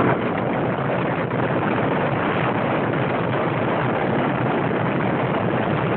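Steady rushing noise of a car moving at speed, heard from inside the car: wind and road noise, with no horn or voices.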